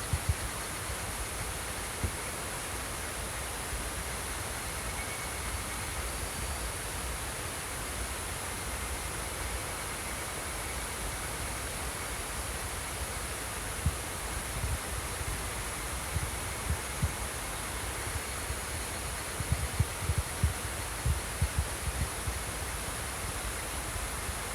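Water flowing steadily, with insects chirping in a continuous high trill over it. Scattered low thumps come in the second half.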